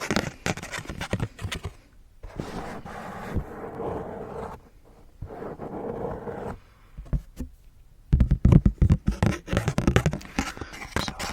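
Close-miked ASMR scraping and rubbing on a Pokémon trading card, in two stretches, then a run of quick taps and crackles over the last few seconds.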